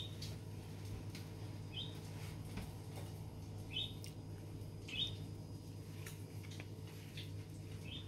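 Faint short high chirps, a small bird calling every second or two, over a steady low hum.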